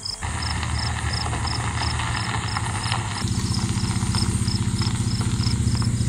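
Chevrolet pickup truck's engine running as it comes up a gravel driveway, tyres crunching on the gravel, then settling to a steady idle about three seconds in. Crickets chirp in a steady rhythm throughout.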